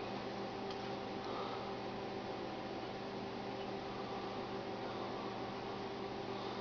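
Steady electrical hum made of several fixed tones over a low hiss, with one faint click about a second in.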